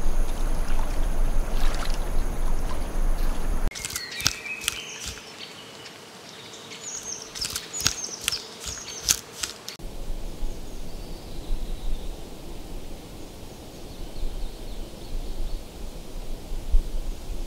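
Three natural outdoor soundscapes cut one after another. First a steady rush of running water. Then, a few seconds in, a stretch of sharp clicks and short high chirps. Then, about ten seconds in, a faint quiet forest background.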